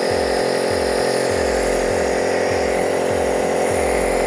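Elvasense NEB39 air-compressor nebulizer running with a steady hum, its airflow turned down slightly from maximum.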